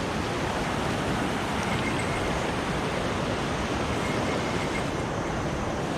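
Mountain stream rushing steadily, an even, unbroken roar of water.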